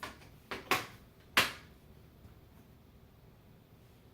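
Front panel of a PC case being pushed onto the chassis and snapping into place: a few sharp plastic clicks within about a second and a half, the last one the loudest.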